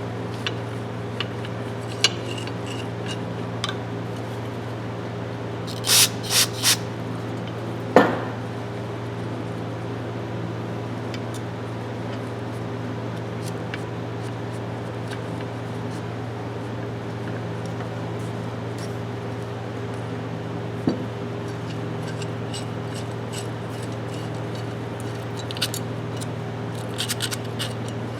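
Small metal clicks and rubbing as an adjustable wrench is worked clean with a screwdriver and a towel, over a steady low hum. About six seconds in come three short hissing bursts, and soon after one sharp metal clank.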